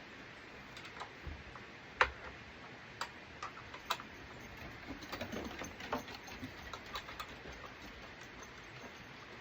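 Irregular clicks and taps of hand tools and metal parts being handled on a lawn mower, with one sharp knock about two seconds in and a busier run of small clicks between five and seven seconds.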